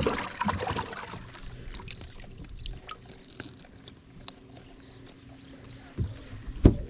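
A sharp knock, then scattered light clicks and knocks over a faint steady hum, with two heavier thumps about six seconds in, the second the loudest.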